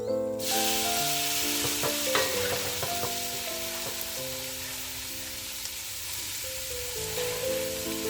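Food frying in hot oil in a pan: a loud, steady sizzle that starts abruptly about half a second in, with a few light utensil knocks around two seconds in.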